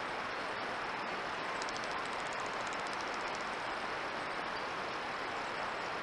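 Steady outdoor hiss picked up by a trail camera's microphone, with a faint, rapid high-pitched ticking trill, about ten ticks a second, starting about a second and a half in and lasting about two seconds.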